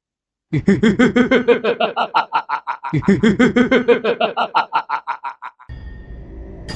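A man's evil villain laugh, a rapid 'ha-ha-ha' of about five beats a second in two long runs, the second fading out. A low rumble of scary music comes in near the end.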